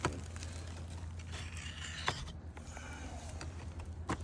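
Wooden roof shakes being handled and wiggled: a few sharp clicks and knocks, about two seconds apart, with faint scraping between, over a steady low hum.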